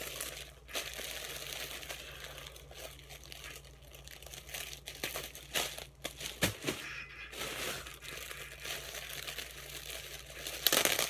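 Clear plastic packaging bag crinkling as it is handled, in uneven crackly flurries, with the loudest burst near the end.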